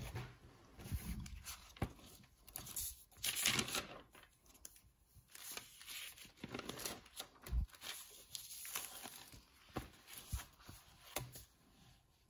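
Paper being handled on a desk: notebook pages rustling and scraping in uneven bursts, with a dull knock past the middle.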